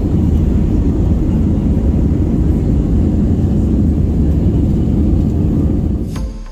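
Jet airliner heard from inside the passenger cabin: a loud, steady rumble of engine and air noise. It cuts off about six seconds in, where music starts.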